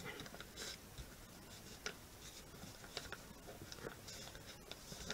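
Faint rustling and creasing of a sheet of printing paper being folded and pressed flat by hand, with a few soft crackles at irregular moments.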